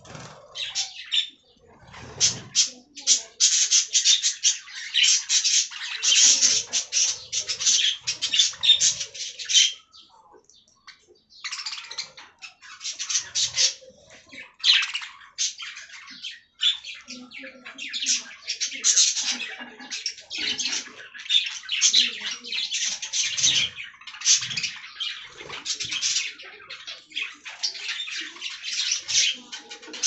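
A flock of budgerigars chattering and chirping, a dense high-pitched warble of overlapping calls that drops away for a second or so about ten seconds in, then resumes.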